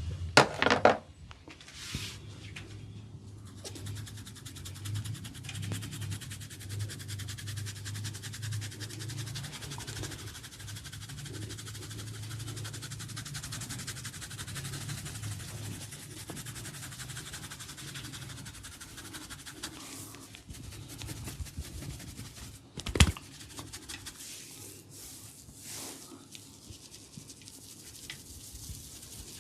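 Hands rubbing and scratching an oiled scalp and hair, a fast, fine scratching sound. There are a couple of sharp snaps right at the start and one loud crack about three-quarters of the way through.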